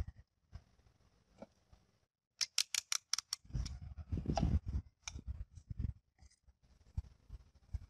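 Empty plastic bottles handled on a work mat: a quick run of sharp clicks about two and a half seconds in, then dull hollow knocks and rubbing as a bottle is set down and laid against a knife blade.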